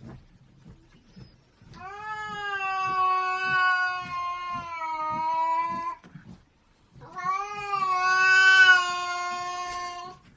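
A cat yowling: two long, drawn-out calls, each several seconds long, held at a nearly steady pitch with a short break between them.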